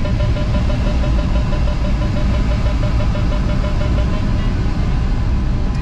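Glider's audio variometer beeping rapidly and evenly at one steady pitch, over the low rush of airflow around the cockpit.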